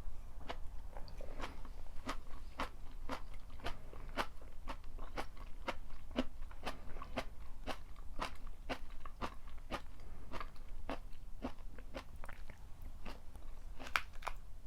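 Close-miked chewing of stir-fried Chinese cabbage and pork: a steady run of crisp crunches, about two a second.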